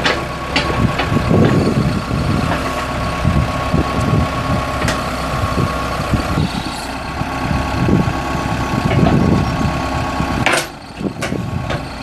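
Case 580M Turbo backhoe's four-cylinder turbo diesel engine running while the backhoe boom and bucket are worked, with a steady high whine over the engine and a few sharp clanks.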